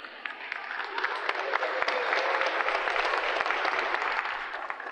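Spectators clapping and applauding in a reverberant sports hall, building about a second in and dying away near the end.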